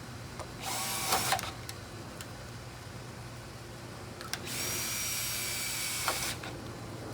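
Cordless drill driving a fastener into the enclosure frame: a short run about a second in whose pitch drops as it bites, then a longer steady whining run of about two seconds in the second half.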